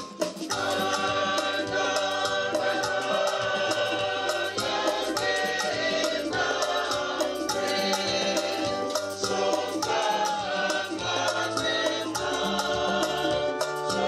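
A choir singing over rhythmic percussion with a steady beat.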